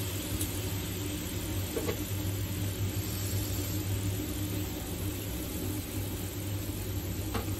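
A steady low mechanical hum, with two faint clicks, one about two seconds in and one near the end.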